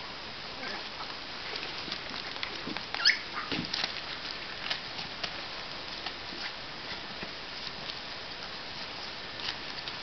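Cavalier King Charles spaniel puppies, 26 days old, scuffling and pawing at a padded bed and newspaper, with scattered small scratches and clicks. About three seconds in, one puppy gives a short, high squeak.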